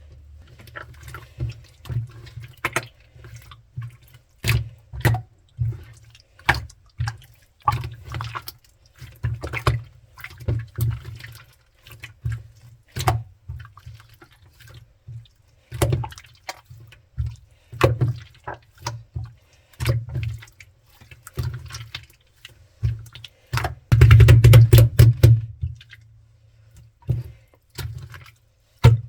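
Clear slime being squeezed and worked by hand, giving irregular wet clicks and pops. About two-thirds of the way through comes a dense run of rapid crackling pops, the loudest part.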